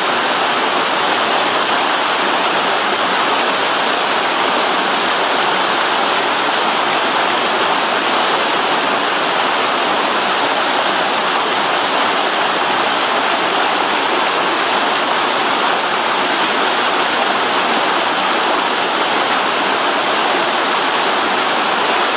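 Waterfall on a mountain stream: water rushing and falling, loud and steady without a break.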